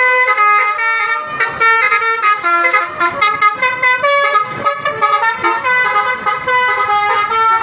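Basuri telolet horns on a tour bus playing a tune: a rapid run of loud horn notes stepping up and down in pitch, often two or more sounding together.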